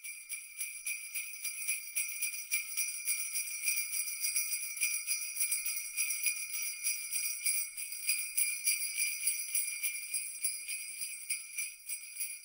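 Sleigh bells jingling in a steady shaken rhythm, a Christmas music track with no kitchen sound beneath it.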